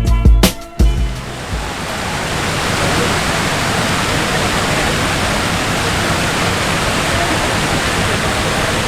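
Steady, loud rushing of falling water, as from heavy rain or fountain jets, after a drum-backed music track ends about a second in.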